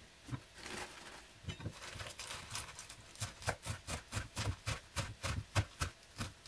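Kitchen knife chopping Castelfranco radicchio leaves on a wooden cutting board: quick, even knocks of the blade on the board, about four a second, starting about a second and a half in.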